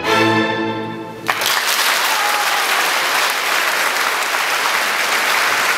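A string orchestra with solo violins holds its final chord, which fades and then ends on a sharp final stroke about a second in. Applause breaks out at once and carries on steadily.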